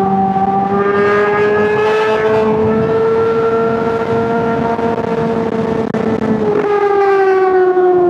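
Honda CBR600RR inline-four engine held at high revs, giving a steady high-pitched wail. The pitch creeps up slightly, then drops a little after about six seconds.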